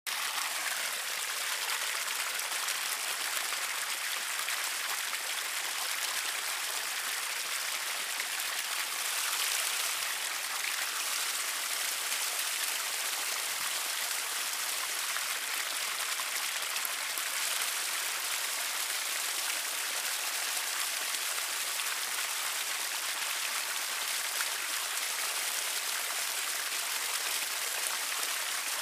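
Shallow stream splashing over rocks in a steady rush of water, with hands rinsing a whetstone in the flow.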